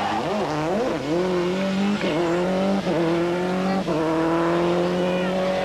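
Subaru Impreza WRC rally car's turbocharged flat-four engine at full throttle. The revs swing up and down for the first second, then climb steadily through several quick upshifts, each marked by a short break in the engine note.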